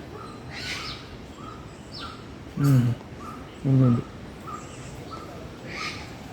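Caged small birds in an aviary chirping over and over, short calls about every half second, with high squeaks now and then. Twice in the middle comes a loud, low, falling coo-like sound, louder than the chirping.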